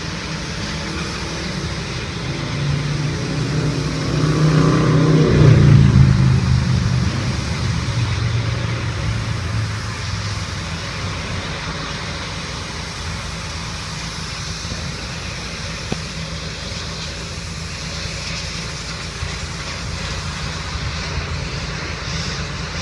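A motor vehicle passing close by on the street: its engine swells a few seconds in, peaks, then fades over several seconds with a falling pitch. A steady hum and hiss runs underneath.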